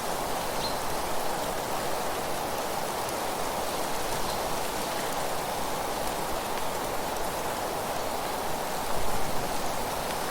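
Steady rushing rustle of wind through leaves, swelling briefly louder about nine seconds in.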